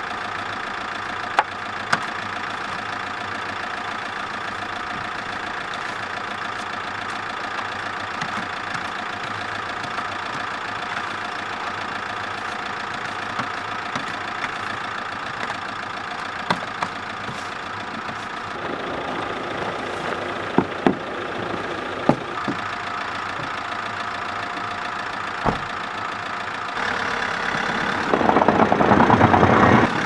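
Fiat Ducato camper van's engine idling steadily, with occasional light knocks and scrapes from a snow brush clearing the windscreen. It grows louder in the last few seconds.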